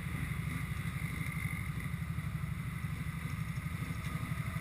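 ATV engine running steadily at low revs, a fast even low pulsing with no change in speed.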